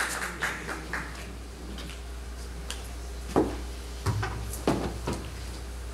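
Applause tailing off in the first second, then a steady low hum, then a handful of dull knocks and bumps from a laptop being set down and handled on a wooden lectern.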